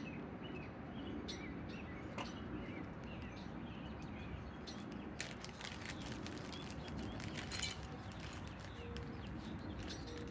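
Outdoor background noise with faint bird chirps, and the scattered crinkles and clicks of a small plastic packet being opened around a screwdriver bit. The sharpest click comes about three-quarters of the way through.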